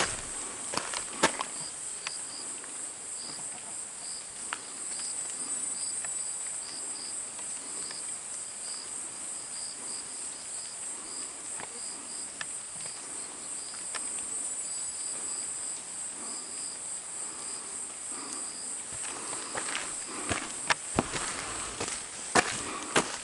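Insects calling, a steady high buzz with a pulsed chirp about twice a second. Footsteps sound near the start and again near the end.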